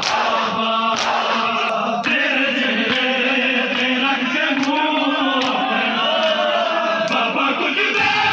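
A group of men chanting a noha, a Shia mourning lament, in unison. Sharp slaps of hands striking bare chests (matam) keep the beat, roughly one a second.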